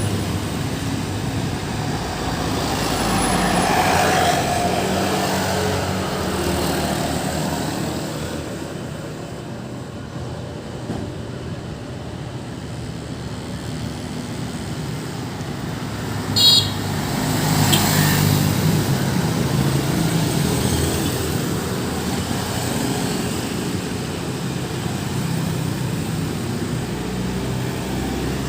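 Steady road traffic with vehicles passing close by, swelling as one goes past about four seconds in and again about eighteen seconds in. A short, sharp high-pitched sound cuts in once about sixteen seconds in.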